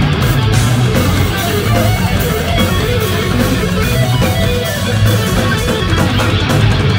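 Live instrumental progressive metal: eight-string electric guitars over a drum kit, loud and dense with heavy low-end pulses.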